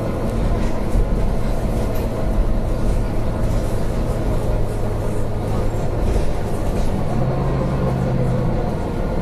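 Volvo B9TL bus's six-cylinder diesel engine running, heard from inside the passenger saloon as a steady low drone with road and body noise. Its engine note strengthens for about a second and a half near the end.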